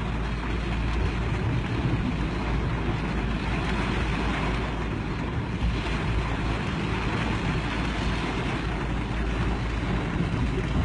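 Steady rushing of a torrent of floodwater pouring down a road, with a low rumble of wind on the microphone.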